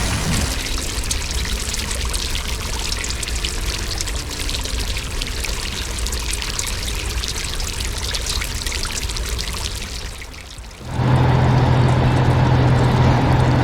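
A steady rushing, crackling noise like running or pouring water for about eleven seconds. It then cuts off abruptly, and a heavy machine's engine takes over, running steadily with a low hum. The engine is louder than the noise before it.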